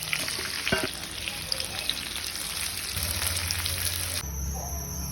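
Boiled potatoes frying in a little oil in a pan, a steady sizzle with a few small clicks, which cuts off suddenly near the end.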